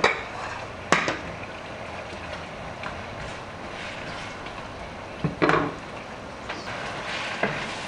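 Seafood sizzling in hot olive oil in a pan, with a few sharp knocks of a utensil against the pan as it is stirred, the loudest about a second in and about five and a half seconds in.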